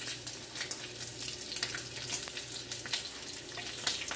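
Pork bacon sizzling in a pan, a steady crackle with many small pops, over a faint low steady hum.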